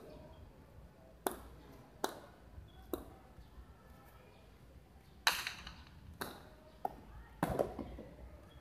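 A hard jai alai pelota striking the fronton's concrete walls and floor and being caught in a wicker cesta: about eight sharp cracks at uneven intervals. The loudest come about five and seven and a half seconds in, each with a short ringing echo.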